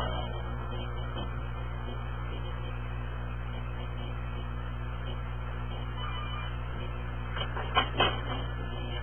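Steady low electrical hum, with two quick knocks close together near the end.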